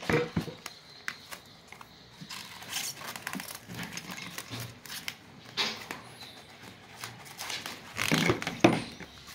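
Soft, scattered scrapes and knocks of a knife and fingers digging flesh out of a hollowed-out watermelon, with a spoon and a plastic cup clinking; a louder cluster of knocks about eight seconds in.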